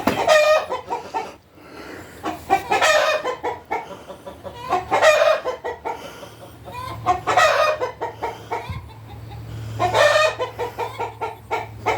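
Chickens giving a series of loud, drawn-out squawking calls, one every two to three seconds: the flock's alarm after being spooked, most likely by a hawk.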